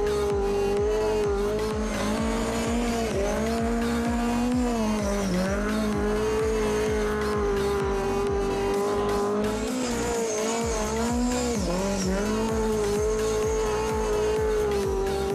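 Lada 2107 rally car's four-cylinder engine held at high revs under throttle, dipping briefly about five seconds in and again about eleven and a half seconds in as the driver lifts or shifts. Background music with a steady beat plays underneath.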